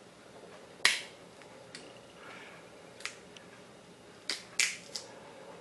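Oven-baked chicken leg bone cracking in the jaws of pliers: a series of sharp snaps, the loudest about a second in and a quick run of three near the end, as the cooked bone splits into sharp shards.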